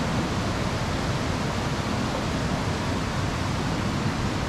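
Steady rushing noise of fast-running water, with no break or change.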